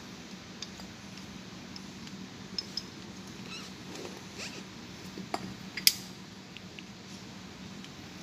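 Scattered light metallic clicks and clinks as the steel parts of a gear-type compressor oil pump are handled and taken apart by hand, with one sharper click a little before six seconds in. A faint steady hum runs underneath.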